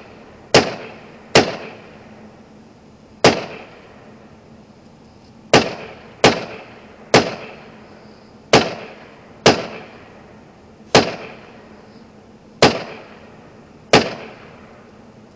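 AR-15 rifle fired in eleven single shots at an uneven pace, some about a second apart and others two seconds or more. Each crack is followed by a short fading echo.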